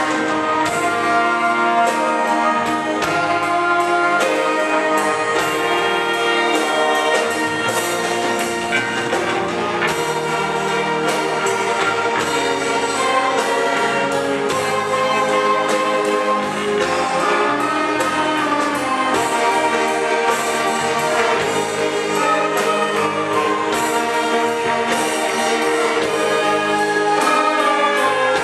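Church string orchestra, violins prominent, playing a worship song in sustained ensemble lines, with a brass-like wind instrument also heard.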